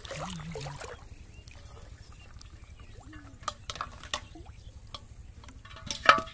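Water splashing and dripping as plastic-bottle fish traps are handled in shallow water, with a few small knocks. Near the end comes one sharp, loud knock with a short ring, as a trap or catch strikes an aluminium pot.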